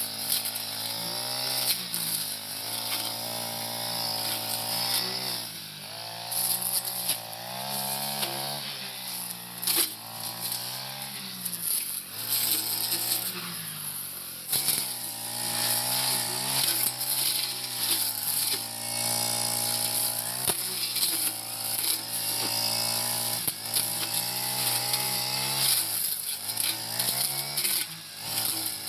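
Four-stroke brush cutter engine running, its pitch rising and falling repeatedly as the throttle is worked while cutting dense, bushy grass, with frequent sharp ticks throughout.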